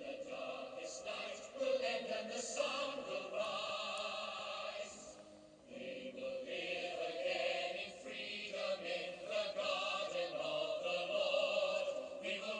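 Background choral music: several voices singing held, wavering notes. It dips briefly about five and a half seconds in, then swells again.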